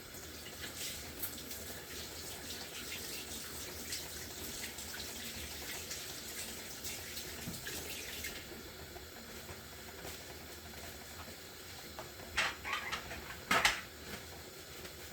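Kitchen sink tap running while hands are washed under it, for about eight seconds before the flow stops. A few short knocks follow near the end.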